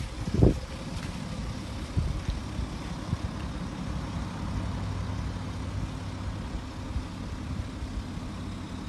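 BMW 435d's 3.0-litre twin-turbo straight-six diesel idling steadily, under wind noise on the microphone. There is one low thump about half a second in.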